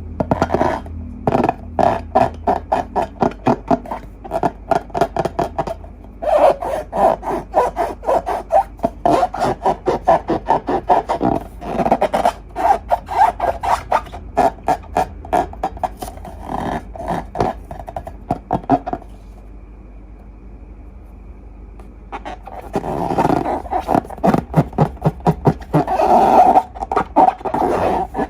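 Slime being worked by hand: quick runs of wet, sticky clicks and pops as it is squeezed and pulled. The clicking stops for about three seconds a little past the middle, then starts again.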